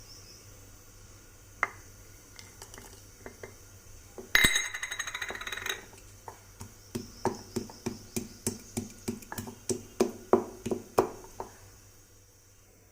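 Metal utensil clinking and knocking against a pan, with a short rattling clatter a little before the middle, then regular knocks about three a second as the potatoes are stirred.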